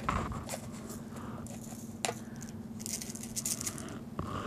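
Salt being shaken from a canister into a measuring spoon: a light, fine rattle of grains, strongest about three seconds in, with a few small clicks and a faint steady hum underneath.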